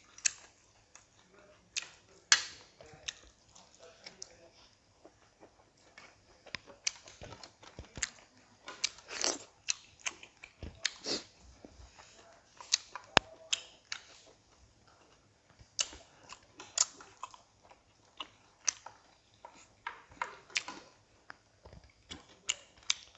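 Close-miked eating sounds: irregular wet mouth clicks, lip smacks and chewing as boiled pork, rice and cucumber are eaten by hand, with occasional light knocks on plastic plates and the serving dish.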